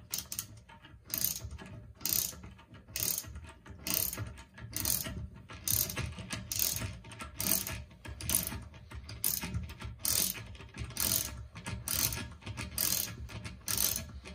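Half-inch ratchet wrench clicking in short bursts, about one a second, as it swings back on each return stroke while tightening a toilet seat bolt.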